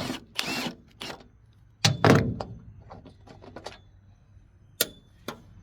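Clatter and knocks of metal tools and parts being handled and set down, with a loud clank about two seconds in and a few sharp knocks near the end.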